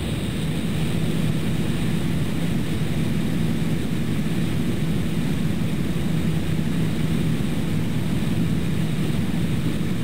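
Extra 300L's six-cylinder Lycoming engine and propeller droning steadily at constant power.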